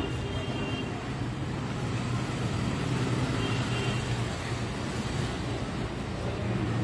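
A steady low hum and rumble of background noise.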